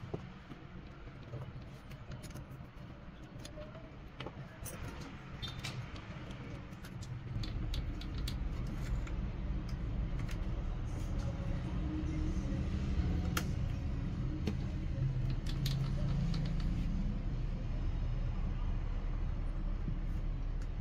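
Light metallic clicks and clinks as a small HSS slitting saw blade is worked by hand onto a freshly turned steel arbor shaft; the blade does not slide on easily, the shaft being a tight fit. A low steady hum comes in about seven seconds in and carries on.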